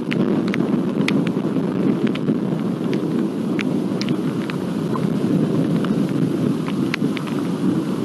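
Thunderstorm: a steady low rumble, with irregular sharp ticks of raindrops striking close by.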